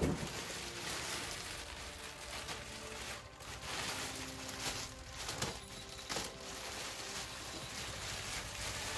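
Thin clear plastic bag crinkling and rustling as it is handled and pulled off a large plastic figure, a steady crackly rustle with a few sharper crinkles.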